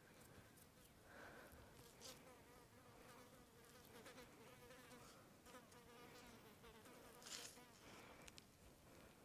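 Faint buzzing of a fly hovering near the microphone, wavering in pitch for most of the clip. A few light clicks of handling are heard, the clearest one late on.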